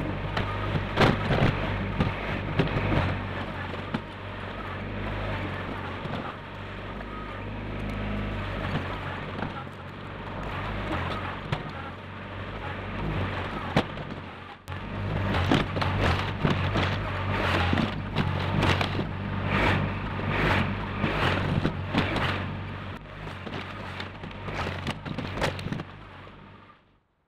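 Compact tractor engine running steadily while its front-loader bucket dumps and scrapes dirt back into a trench, with repeated knocks and clatter of soil and stones. The sound breaks off briefly about halfway through and fades out near the end.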